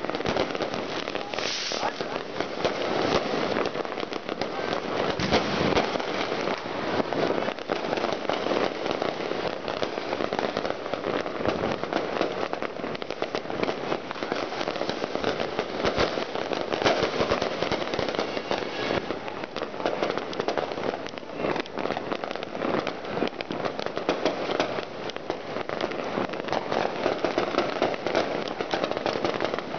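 Dense, continuous barrage of fireworks and firecrackers: countless overlapping pops, cracks and bangs with no pause, some sharper and louder than others.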